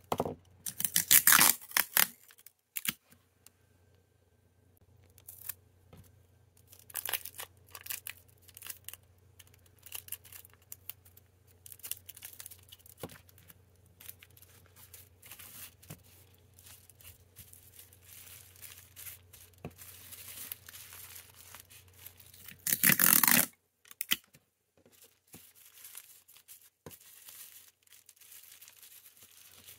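Clear plastic packaging and bubble wrap crinkling and rustling in hands, with scattered light taps on the desk. The loudest moments are a rustle of crackles right at the start and a half-second rip near the end.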